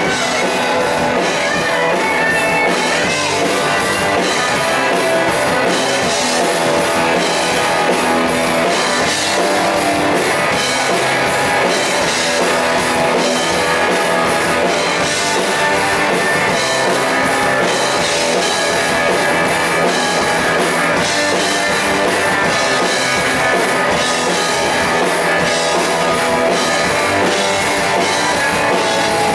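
A live rock band playing a song, with electric guitar and a drum kit keeping a steady beat.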